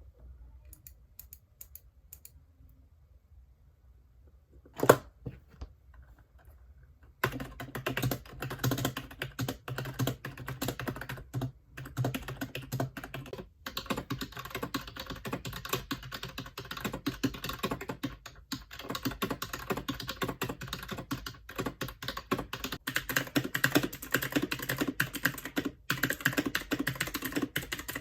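Typing on a computer keyboard: a few faint, scattered keystrokes at first with one loud clack about five seconds in, then from about seven seconds in fast, continuous typing with clicky keystrokes.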